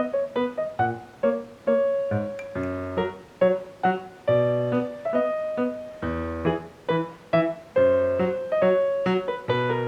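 Background piano music: a melody of plucked-sounding notes over chords, several notes a second.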